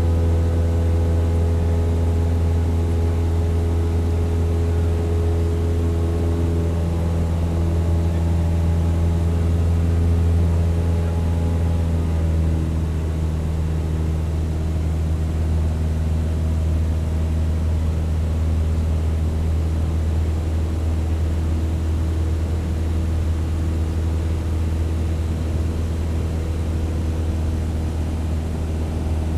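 Propeller plane in flight: a steady engine drone, a strong low hum with a stack of higher tones above it. About twelve seconds in, the upper tones shift in pitch and the drone gets a little quieter.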